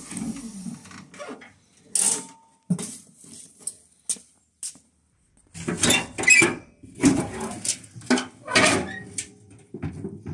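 A run of knocks, clanks and rustles from working at the back of a cargo tricycle's metal bed: the tailgate unlatched and wicker baskets handled on the bed. The clatter is busiest in the second half.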